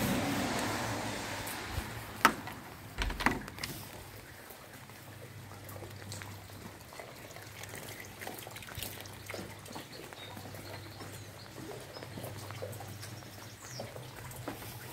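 A door being opened, a rush of noise at the start that fades over about two seconds, with a few sharp knocks about two and three seconds in. Then faint water dripping and trickling in a rain-wet concrete yard, with scattered small ticks.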